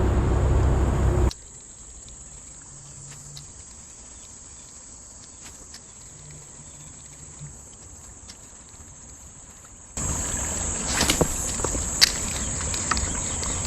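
Insects trilling steadily at a high pitch, faint for most of the time and louder from about ten seconds in, with a few sharp clicks. A louder low rumble fills the first second and cuts off suddenly.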